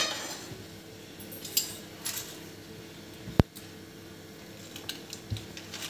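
A few light metallic clicks and one sharp tick about three and a half seconds in, over a faint steady background, from an empty flat pan heating on a lit gas burner.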